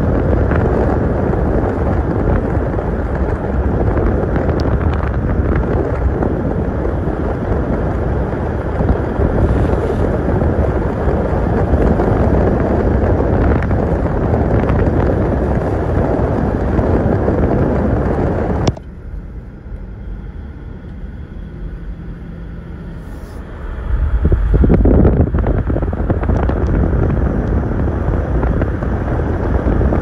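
Steady rumbling road and wind noise from a moving car. It drops away sharply about two-thirds of the way through and comes back some five seconds later.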